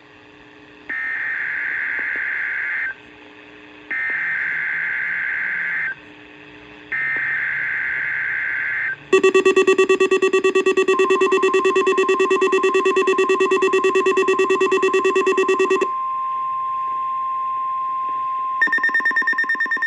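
NOAA Weather Radio weekly test signal. It opens with three bursts of SAME digital header data, each about two seconds long with a one-second gap. A loud, rapidly pulsing alarm tone follows for about seven seconds over a steady high tone that carries on alone afterwards, and pulsing beeps return near the end.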